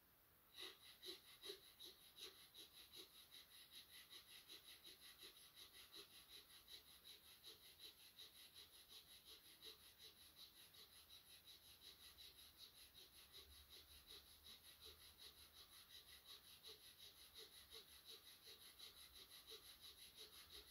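Breath of fire: a man breathing rapidly and rhythmically through his nose, short forceful puffs driven by the abdomen at about three to four a second. The puffs are faint and very even, starting just under a second in.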